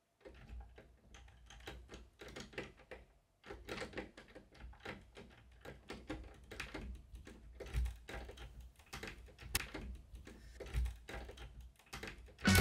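Quiet, irregular clicking and tapping at a door, with a few heavier low thumps among the clicks.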